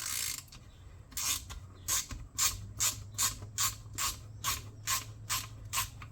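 Socket ratchet wrench clicking in a run of short, even strokes, about two to three a second, as bolts on a Tecumseh lawnmower engine are undone.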